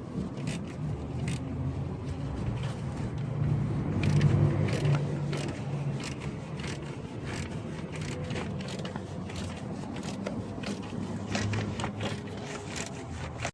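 Hand tools working in a car's engine bay: irregular metallic clicks and scrapes while bolts are being tightened, over a low vehicle hum that swells for a couple of seconds.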